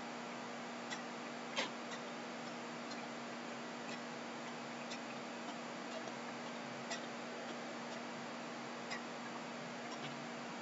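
Faint regular ticking, about one tick a second, with a few softer clicks in between, over a steady hiss and a low hum.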